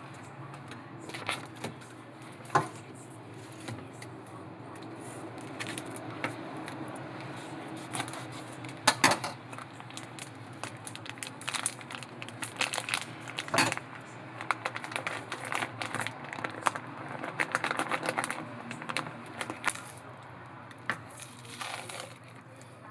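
Kitchen prep handling: packaging or food being crinkled and rustled, with scattered sharp clicks and knocks. The busiest stretches come about nine seconds in, around thirteen to fourteen seconds, and again a little later. A low steady hum runs underneath.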